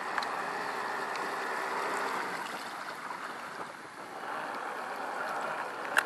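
Radio-controlled model Schnellboot running at speed across the water: a steady rushing hiss of the motor and the hull through the water, easing briefly a little after the middle. A sharp click near the end.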